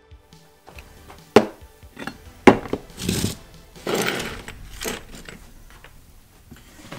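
Metal hand tools and starter-motor parts being picked up and set down on a workbench: a few sharp knocks and clinks, the loudest about two and a half seconds in, with brief scraping between them.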